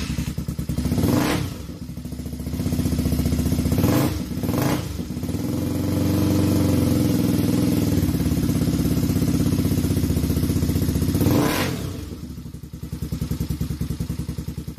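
Small off-road three-wheeler and ATV engines running as they are ridden, revving up and down several times.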